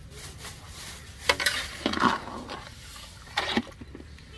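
Flat metal spatula scraping and knocking against a large iron karahi as sugar is stirred into water for syrup, in two short clusters of strokes, one around a second and a half in and one about three and a half seconds in.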